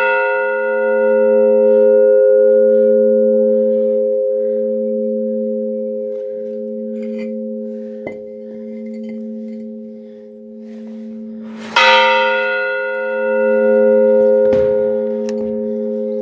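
A large church bell struck once, its hum ringing on and slowly wavering as it fades, then struck again about twelve seconds in.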